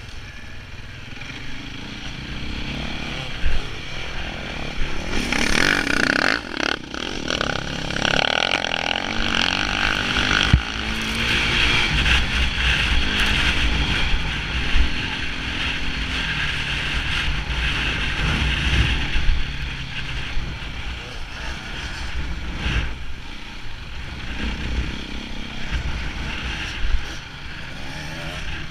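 KTM enduro motorcycle engine revving up and down as the bike is ridden over a dirt track, with a few sharp knocks from the bike going over bumps.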